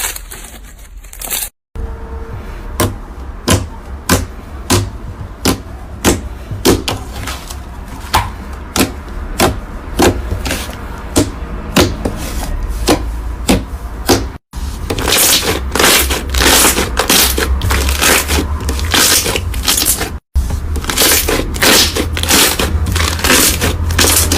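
Crunchy slime being pressed and squeezed, giving crisp crackling pops about every two-thirds of a second. After a brief cut a little over halfway through, the crackling turns denser and busier.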